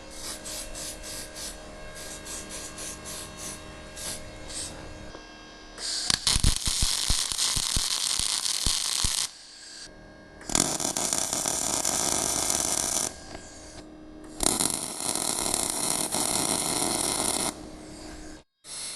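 Electric arc welding: three welding runs of about three seconds each, each a loud, even crackling hiss that starts and stops abruptly, with quieter ticking and crackling before the first run.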